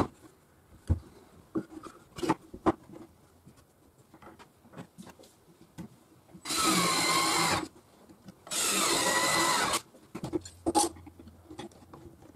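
Cordless drill driving screws into a wooden block in two runs of about a second each, its pitch sagging slightly as each screw bites. Short knocks of wooden pieces being handled on the bench come before and after.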